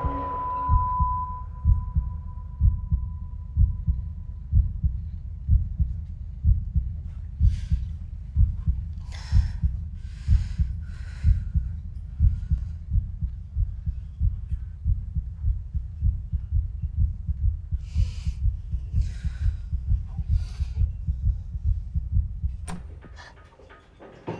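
Heartbeat sound effect from a film soundtrack: a low, steady pulsing, about one and a half beats a second, with a few airy breath-like swells over it and a high ringing tone that fades out in the first few seconds. It cuts off suddenly with a click near the end.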